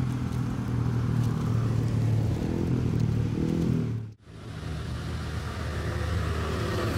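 A motor vehicle engine running with a steady low hum. It breaks off for a moment about four seconds in and then resumes.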